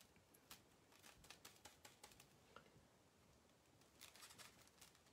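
Near silence, broken by faint scattered light clicks and taps of a paintbrush working paint on a palette, in small clusters about a second in and again around four seconds in.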